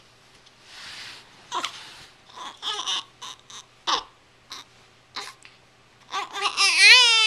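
Baby fussing: breathy sounds and short whimpering noises, then from about six seconds in a loud, high-pitched cry that wavers up and down in pitch.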